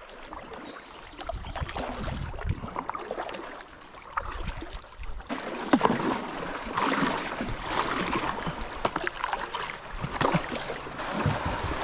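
A kayak being paddled up a shallow rapid: paddle strokes splashing, with small knocks, over water running fast across rocks. The water grows louder about five seconds in.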